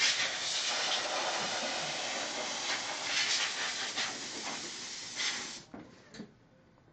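Compressed air hissing as it blasts thick dust out of an open, heavily dust-clogged desktop computer, cutting off sharply near the end.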